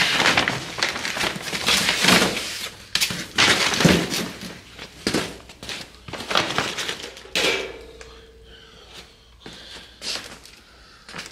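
Packing paper, cardboard and plastic wrap crinkling and rustling in irregular bursts as they are pulled and crumpled off a new steel grill guard, louder for the first seven seconds or so and softer after.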